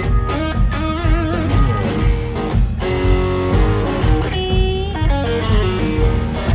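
Live blues band playing an instrumental passage: an electric guitar lead with wavering, bent notes over drums and bass keeping a steady beat.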